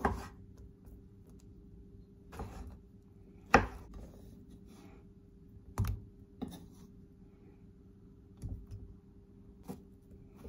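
Kitchen knife cutting through a soft cooked vegetable and knocking on a wooden cutting board: separate knocks every second or so, the loudest about three and a half seconds in, over a faint steady hum.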